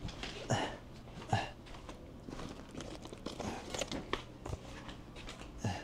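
A person getting up from a desk chair and moving about: a few short knocks and squeaks, soft footsteps and some rustling, over a steady low room hum.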